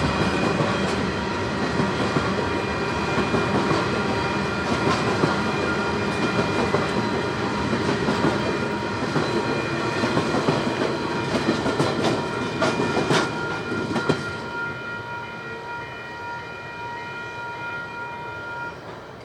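Grain train rolling past, its wheels clacking over rail joints with a steady high-pitched squeal over the rumble. About three-quarters through the rumble and clacking drop away, leaving the fainter squeal, which cuts off near the end.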